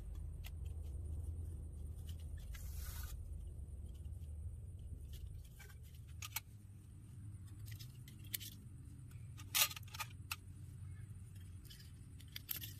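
Thin titanium panels of a folding Firebox Nano stove being unfolded and clipped together: scattered light metal clicks and clinks, with a brief scrape about two and a half seconds in and a sharper clink about three-quarters through, over a low steady rumble.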